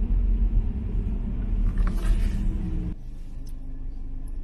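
Car cabin noise while driving: a steady low rumble of engine and road, which drops noticeably quieter about three seconds in.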